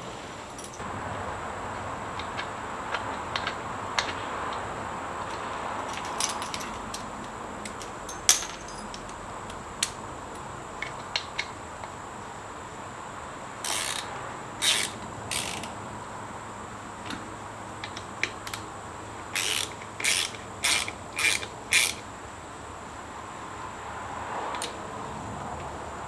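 Hand ratchet clicking in short strokes as bolts are run in: three strokes about halfway through and a quick run of five more a few seconds later, with scattered small metal clinks between.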